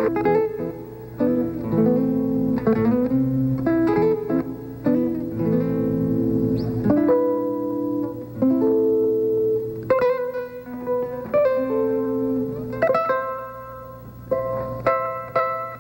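Live band music led by plucked strings picking out a quick melody, with held lower notes underneath.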